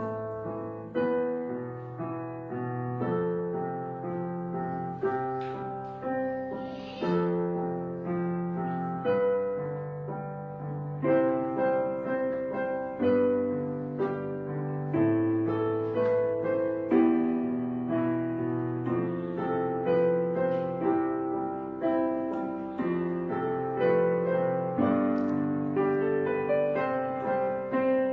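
Background piano music: slow notes and chords struck about once a second, each fading away before the next.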